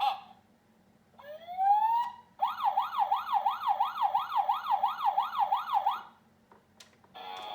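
Road Rippers Police K9 Unit toy's electronic police siren from its small speaker: a rising wind-up tone, then a fast warbling wail of about three cycles a second that cuts off after three and a half seconds. The toy's electronic music starts near the end.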